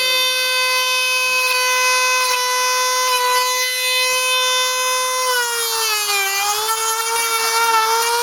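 Dremel rotary tool running with a steady high whine as it grinds down an alpaca's fighting teeth. Its pitch sags for about a second just past the middle, then comes back up.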